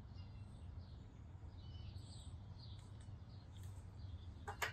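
Quiet outdoor ambience: a steady low rumble with faint, scattered bird chirps, and a sharp click near the end.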